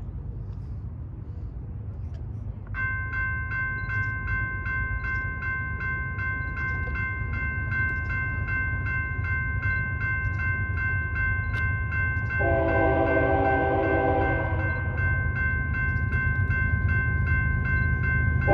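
A railroad crossing's General Signals electronic bell starts about three seconds in and rings rapidly and steadily over a low rumble. About twelve seconds in, a locomotive horn blows one long blast for the crossing, and it starts again right at the end.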